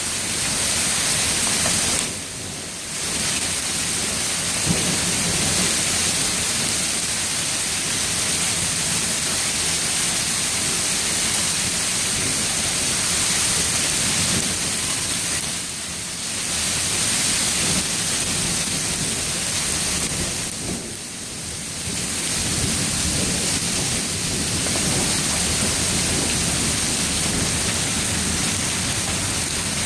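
Heavy hail and rain pelting down in a dense, steady din, easing briefly three times, about two seconds in, near the middle and about two-thirds through.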